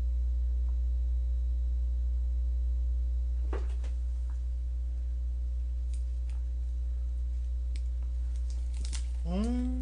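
A steady low electrical hum, with a few faint mouth clicks as a man bites into a large lettuce-and-pork-belly wrap. Near the end he hums a rising "mmm" with his mouth full.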